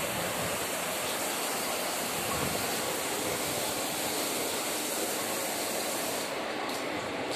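Water running at high flow from a ceiling rain shower head, a steady dense splashing hiss of water falling onto the shower floor. The top of the hiss thins a little about six seconds in.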